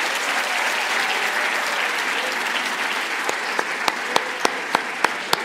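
Large audience applauding, a dense wash of clapping that thins in the second half into scattered individual claps.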